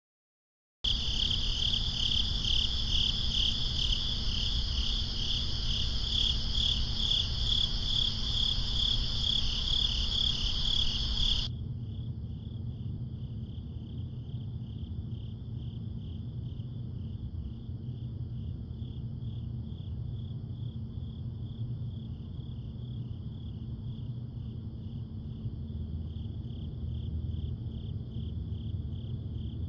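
Crickets chirping in a rapidly pulsing chorus over a low rumble, starting about a second in. About eleven seconds in, the sound drops abruptly quieter and carries on at the lower level.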